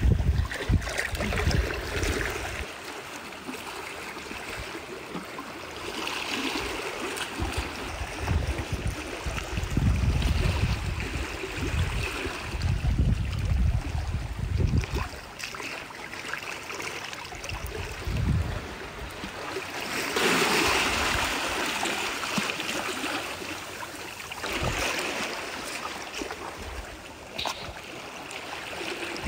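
Shallow seawater lapping and sloshing over sand, in uneven washes, with a louder wash about two-thirds of the way through.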